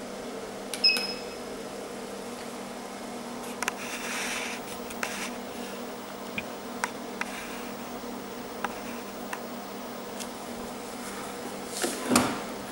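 Nd:YAG laser machine humming steadily with its cooling running. A short electronic beep about a second in as a control-panel button is pressed, scattered faint clicks, and a knock near the end as the laser handpiece is handled.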